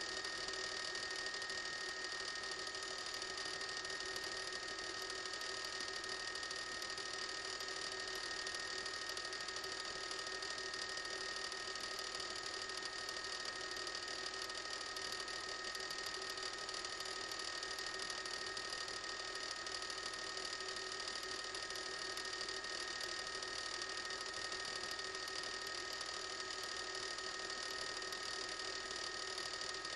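News helicopter's cabin and turbine noise: a steady whine with two high held tones over an even hiss, unchanging throughout.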